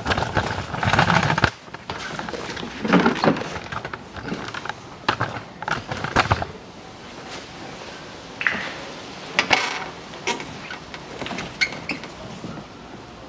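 Hands working on the plastic windscreen washer reservoir and its hose behind a car's front bumper: irregular clicks, knocks and scraping of plastic, busiest in the first second and a half and again around three seconds in, as the washer hose is worked off the reservoir.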